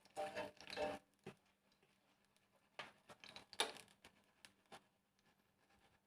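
Faint clinks and knocks of kitchen utensils: a cluster of handling noise at the start, then a few scattered short clicks about three to five seconds in, as the fried banana fritters are lifted out and set aside.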